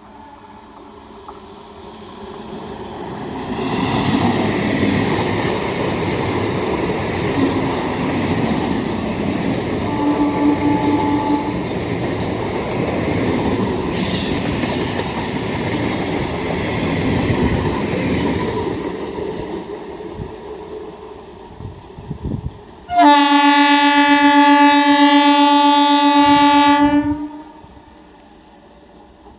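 An Indian Railways passenger train passing, its wheels clattering over the rail joints as the sound builds, holds for about fifteen seconds and fades, with a short horn toot partway through. Near the end a loud train horn sounds one steady blast of about four seconds that cuts off sharply.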